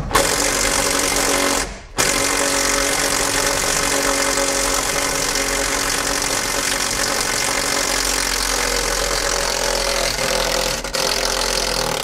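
Cordless impact driver hammering continuously as it backs out a tight, threadlocked seat belt anchor bolt, pausing briefly about two seconds in before hammering on.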